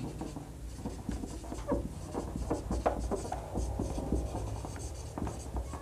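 Marker pen writing on a whiteboard: a run of short, irregular squeaks and scratches as each letter is stroked out.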